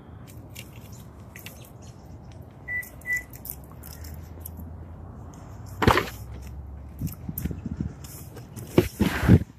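Handling noise and footsteps while walking around a parked car. There are two short high chirps about three seconds in, a sharp click about six seconds in, and a loud burst of clunks and rustling near the end as the car door is opened.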